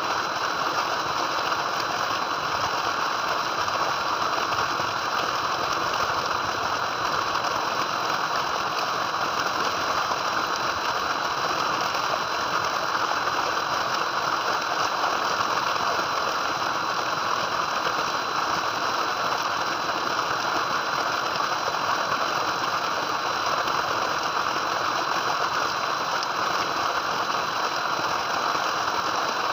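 Water gushing steadily from a tubewell's outlet pipe and splashing into a concrete tank, an even rushing noise, with a thin steady high tone above it.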